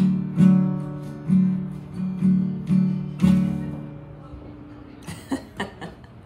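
Acoustic guitar strummed in a run of chords, the last one left ringing and fading out to close a song. A few brief soft sounds follow near the end.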